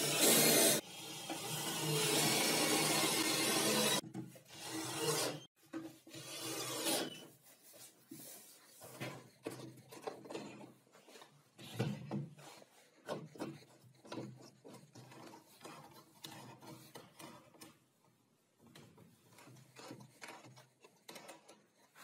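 Cordless drill driving a screw into plywood, in two runs over the first four seconds with a short break between. After that come quieter, irregular rubbing, scraping and light knocks of wooden parts being handled.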